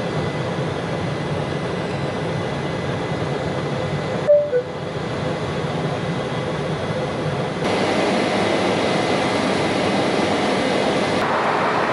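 Jet airliner cabin noise during the climb after takeoff: a steady rush of engines and airflow heard at a window seat, stepping louder and brighter about eight seconds in. A short falling two-note chime sounds about four seconds in.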